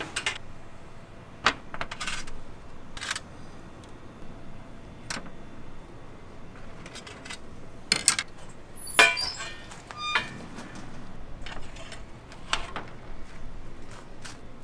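Scattered clicks and knocks of metal being handled, with a louder metallic clatter that rings briefly about nine seconds in.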